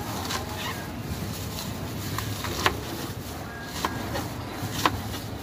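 Knife slicing through lettuce and tapping down on a plastic cutting board: a handful of sharp, irregular taps, the loudest about two and a half seconds in and again near the end, over a steady low hum.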